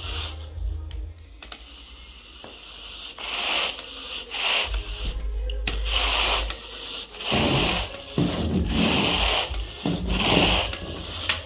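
Carpet groomer drawn back and forth over carpet pile: a series of scraping, brushing strokes about one a second, louder from about three seconds in.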